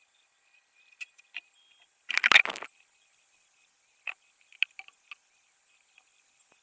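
A short clatter of small hard objects knocking together about two seconds in, followed by a few sharp single clicks, over a faint steady high whine.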